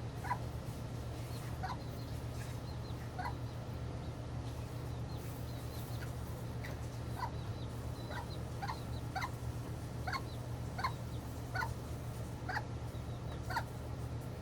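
Domestic poultry giving short, repeated calls, sparse at first and then coming about one or two a second, over a steady low hum.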